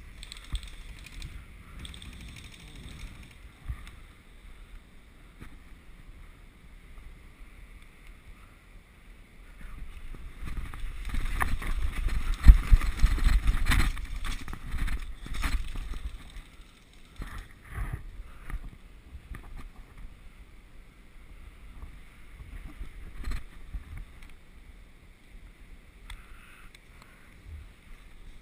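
Rumble and rustling from a body-worn action camera's microphone as the wearer moves crouched through the woods, with a louder stretch of buffeting and crackle from about ten to sixteen seconds in and a few scattered knocks.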